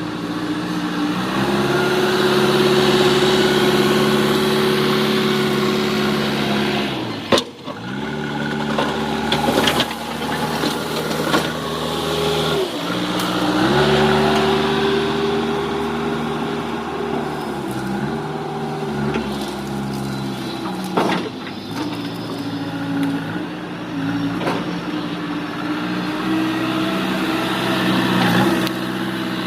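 JCB backhoe loader's diesel engine working hard, revving up under load and dropping back several times, with a few sharp knocks in between.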